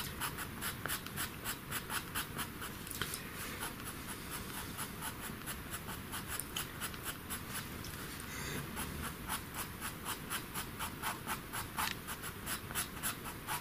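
Pastel pencil scratching across paper in quick, short, repeated strokes, several a second, as fur is drawn.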